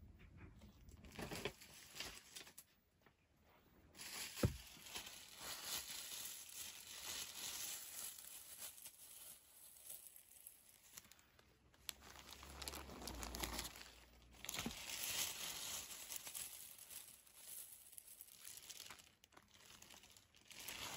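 Clear plastic bags crinkling and rustling in stretches as bagged yarn skeins are handled and moved about, with one sharp knock about four seconds in.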